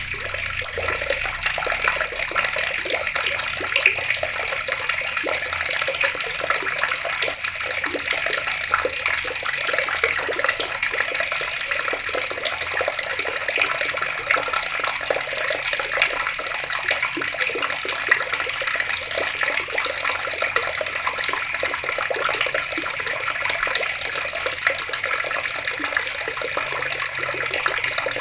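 Water running from an outdoor tap: a steady, splashing flow.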